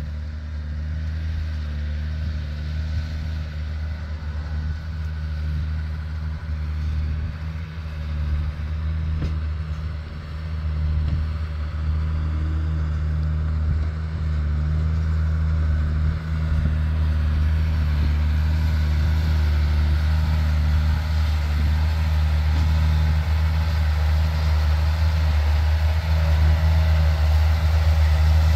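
Farm tractor's diesel engine running steadily, growing louder as the loader tractor comes close in the second half.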